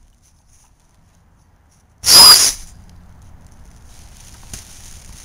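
A Volo CO2 kite inflator at the kite's inflation valve: a sudden, loud rush of hissing gas about two seconds in, lasting under a second, then a faint steady hiss.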